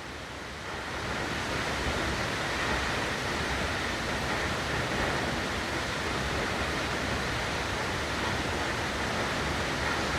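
Nachi Falls, a tall single-drop waterfall, making a steady, full-bodied rush of falling water that swells slightly about a second in.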